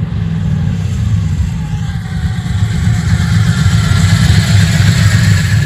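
The 1964 Chevy II Nova street car's 430-horsepower engine rumbling as the car drives closer, growing steadily louder.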